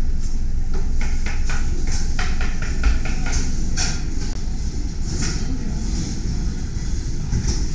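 Busy commercial kitchen: a steady low rumble under frequent short clinks and clatters of plates, pans and utensils, thickest in the first few seconds.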